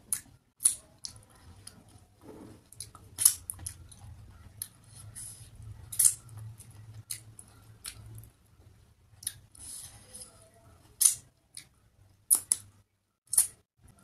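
Close-miked eating sounds: wet smacks and sharp clicks of lips and chewing as rice and fish curry are eaten by hand, coming irregularly, several of them loud.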